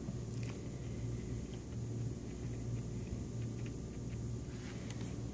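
Room tone: a steady low hum with faint scattered clicks.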